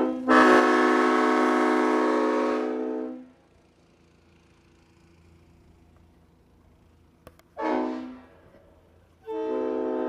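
Vehicle-mounted multi-tone air horn sounding a chord: one long blast that sags and stops about three seconds in, a short toot about seven and a half seconds in, and another long blast starting just before the end.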